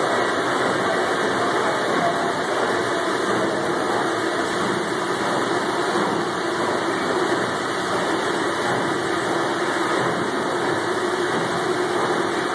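Steady, even machinery noise in a Liberty ship's engine room, with its 2,500-horsepower triple-expansion steam engine turning slowly at about 30 rpm and the oil-fired boiler lit.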